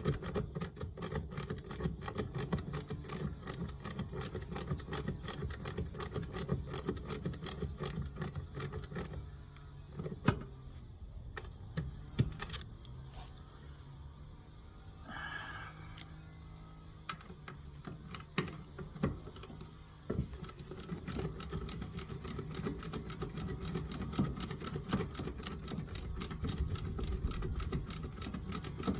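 Rapid mechanical clattering over a low steady hum. It stops for about ten seconds in the middle, leaving the hum and a few single knocks, then starts again.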